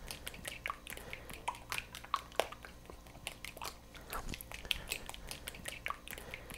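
A metal fork beating eggs and melted vanilla ice cream in a ceramic plate: a continuous run of light, irregular clicks as the tines tap and scrape the plate.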